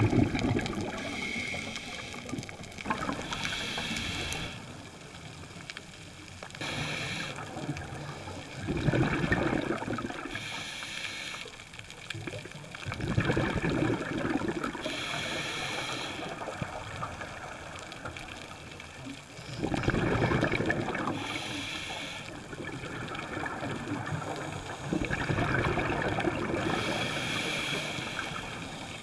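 Scuba diver breathing through a regulator underwater: a hiss with each inhalation, then a bubbling rush of exhaled air, repeating every few seconds.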